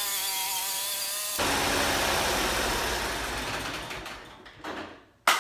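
Small engine of a push lawn mower running just after starting, at first with a steady pitch. About a second and a half in, the sound turns rougher and noisier, then fades out over the last second or so. A sharp click comes near the end.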